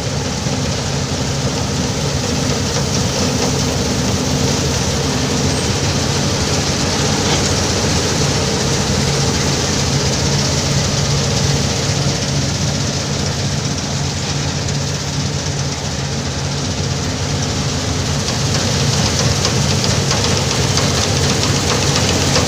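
Wheat-harvesting machine running steadily: an engine's steady drone under a loud, even rush of machinery noise.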